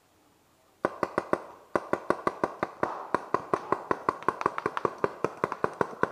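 Rapid paintball fire close by. There are four sharp pops, a brief pause, then a steady string of pops at about six or seven a second that keeps going to the end.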